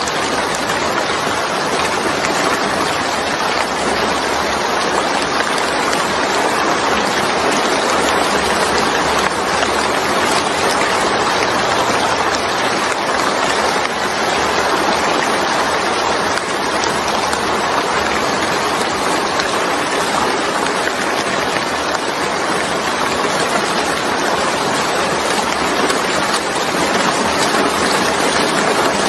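Steady rain falling onto a wet surface, a dense, even hiss that holds unchanged throughout.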